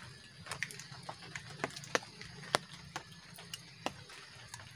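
Water drops tapping at irregular intervals onto the camp shelter after the rain, as scattered sharp ticks, a few louder than the rest, over a faint steady background.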